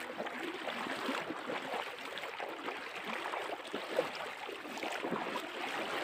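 River water rushing and splashing: a steady, crackly wash of moving water.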